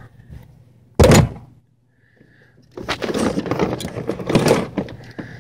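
One loud thunk about a second in, then, from about three seconds in, a run of clattering and rattling as tools and gear are handled in a pickup truck's under-seat storage.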